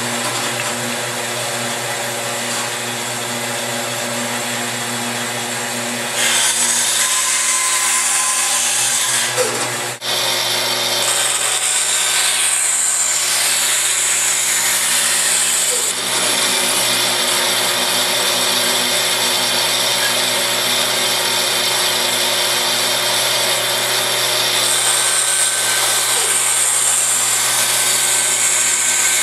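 Band saw running steadily, its blade cutting through small pieces of wood. The hiss of the cut grows louder several times over the motor hum.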